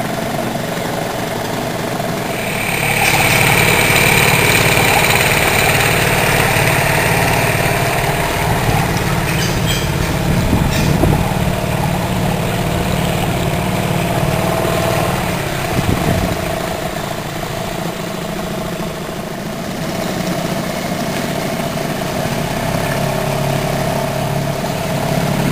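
Dinghy's outboard motor running steadily, a little louder from about three seconds in.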